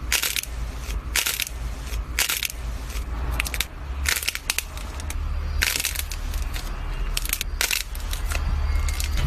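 Crunchy slime being squeezed and crushed by hand, giving repeated bursts of crackling and popping about once a second, over a steady low hum.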